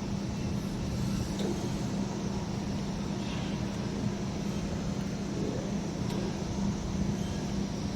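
Steady mechanical hum with a constant low drone from a CNC fiber laser sheet cutting machine and its equipment running.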